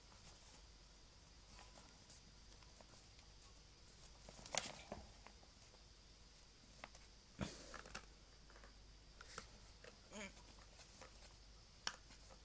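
Faint rustling and a few soft knocks as plain flour is tipped from its bag and weighed out on a kitchen scale; the clearest knocks come about four and a half and seven and a half seconds in.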